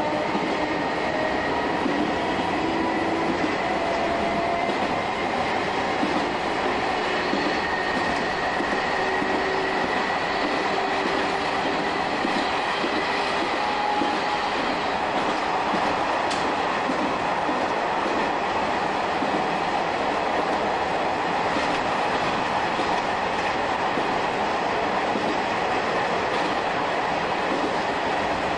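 Shin-Keisei 200 series electric train running, heard from the cab. The nose-suspended traction motors and gears give a whine that rises slowly in pitch over the first several seconds, over steady rolling noise and faint clacks of the wheels over rail joints.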